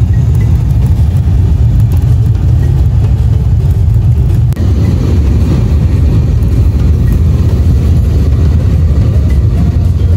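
Car driving along a dirt road, heard from inside the cabin: a loud, steady low rumble of the engine and the tyres on the unpaved surface.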